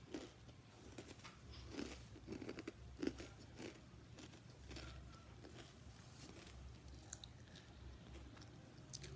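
A child chewing food close to the microphone: soft mouth sounds with scattered short crisp clicks, busier in the first few seconds and fainter after.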